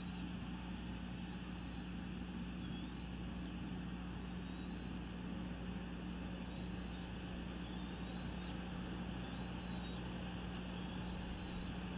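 Steady background hiss with a constant low hum, the ambient sound picked up by an outdoor eagle nest-cam microphone; no distinct events stand out.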